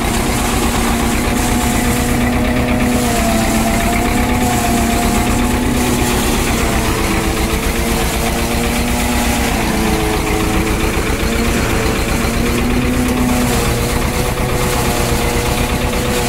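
Farm tractor's diesel engine running steadily, with a drone that wavers a little in pitch.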